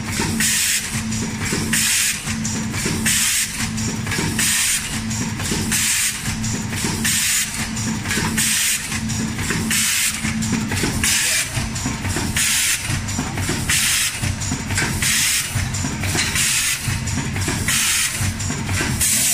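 Automatic stand-up pouch filling and sealing machine running, with a steady hum and a hiss that rises and falls at an even rhythm, a little faster than once a second, as it cycles.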